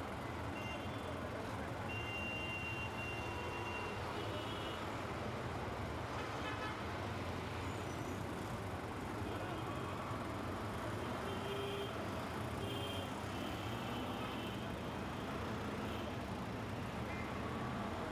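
Steady road traffic noise, with short high-pitched beeps sounding now and then.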